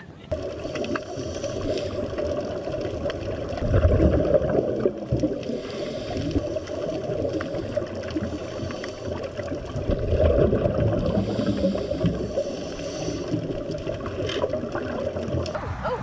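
Underwater sound around a scuba diver: a steady muffled bubbling and rumble, swelling louder about 4 s and again about 10 s in as exhaled bubbles rush from the regulator.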